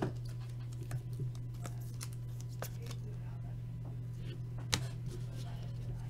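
Trading cards being handled and flipped through: faint scattered clicks and flicks of card stock, with one sharper snap about three-quarters of the way through, over a steady low hum.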